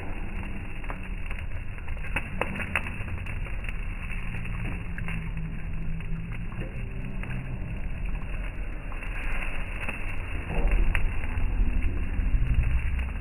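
Thin slices of Hanwoo beef brisket (chadolbaegi) sizzling on a hot grill, with a steady hiss and many small popping crackles of fat, a little louder near the end.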